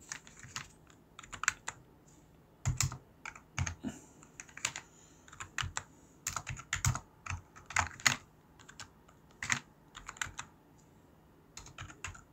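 Computer keyboard keys clicking in short, irregular runs of typing.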